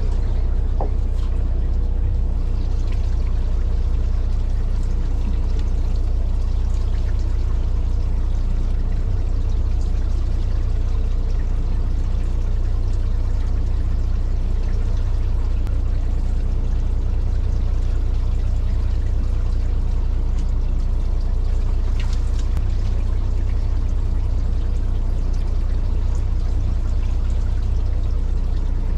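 Fishing boat's engine running with a steady low hum, with water sloshing and splashing against the hull.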